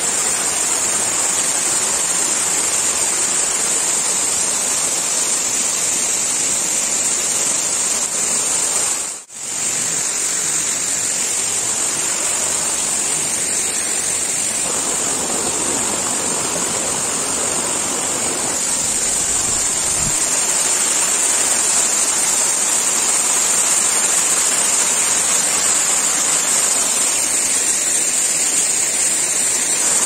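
Steady rush of water from Panchdhara waterfall, a dense, even roar with a constant high-pitched hiss over it. The sound briefly cuts out about nine seconds in.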